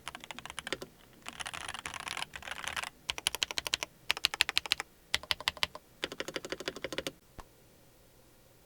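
Typing on a mechanical keyboard, a keycap sound test: several runs of rapid key clacks separated by short pauses, one of them a dense fast flurry, stopping about seven seconds in.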